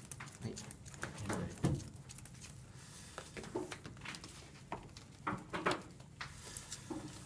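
Scattered light clicks and taps of playing cards being handled and set down on playmats, with brief faint voices in the background.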